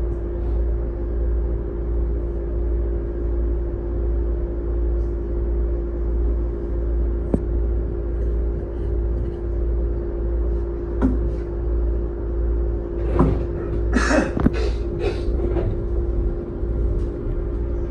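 Running noise inside a train car: a steady deep rumble with a constant hum, scattered light clicks, and a short cluster of knocks and rattles about 13 to 15 seconds in.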